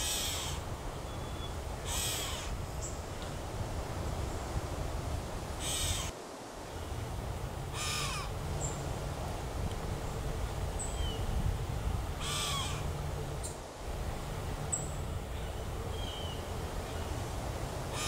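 A crow cawing, five harsh caws spaced a couple of seconds or more apart, with a few faint high chirps from other birds in between.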